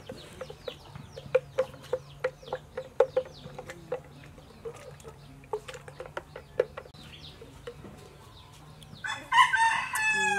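Ladle clicking and knocking against a plastic pitcher as pink syrup milk is stirred, about three taps a second. Near the end a rooster crows loudly, the loudest sound here.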